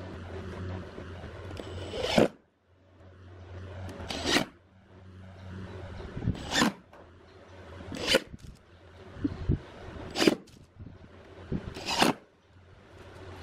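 Cordless impact driver driving screws through a metal connector plate into a subwoofer cabinet: six short bursts about two seconds apart, each building briefly and then cutting off sharply as a screw seats.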